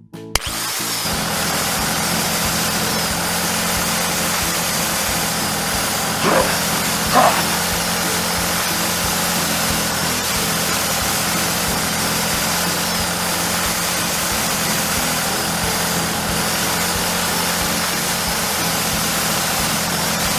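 A small machine's motor running steadily with an even hum, with two short squeaks about six and seven seconds in.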